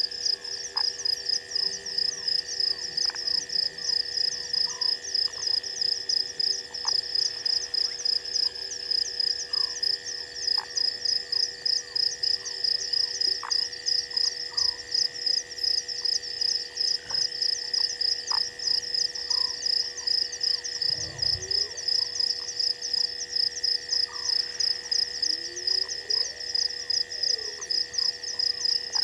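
Night chorus of insects and frogs. A loud high chirping pulses about three times a second over a steady high trill, with short rising frog calls scattered throughout.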